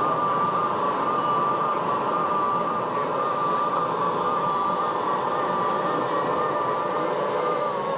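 A steady, slightly wavering high whine from a small electric motor on a radio-controlled scale model machine, over loud hall background noise. The pitch dips a little near the end.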